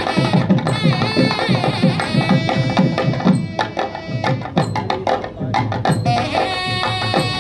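Background music with a fast hand-percussion rhythm under a melodic line.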